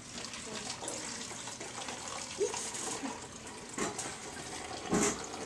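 Hydrogen peroxide pouring in a steady stream from a glass measuring cup into an empty plastic bottle. A short knock sounds near the end.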